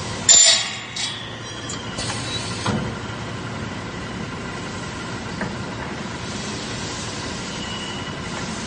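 Factory machinery running steadily, with a loud sharp burst about a third of a second in and a few clanks over the next two or three seconds.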